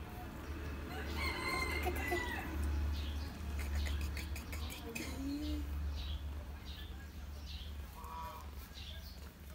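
A rooster crows once, a long pitched call starting just over a second in, over a steady low rumble. A run of quick clicking rustles follows around the middle.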